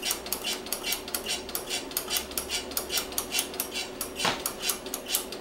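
Rapid, even metallic clicking, about six a second, from the rear brake pedal being pumped quickly to push the old fluid and air out of the rear brake line during bleeding. A faint steady hum runs underneath.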